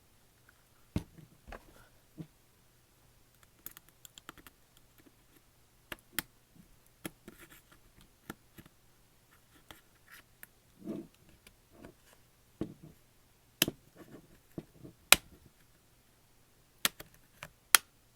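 Irregular sharp plastic clicks and light scratching as a tablet's plastic back cover is pried off, with a duller knock about eleven seconds in and the loudest clicks near the end.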